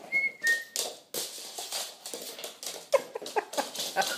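Small dog playing on a hardwood floor: two short high squeaks near the start, then scuffling and scratching, with a quick run of short grunting sounds in the last second or so.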